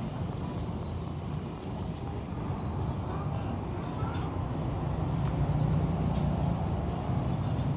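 Birds chirping: many short, high chirps repeating every half second or so, over a low steady rumble that grows louder near the end.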